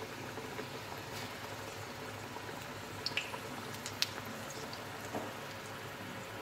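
Pieces of namak pare dough deep-frying in hot oil in a wok: a steady bubbling sizzle, with a few sharp crackles about three to four seconds in and one more near five seconds.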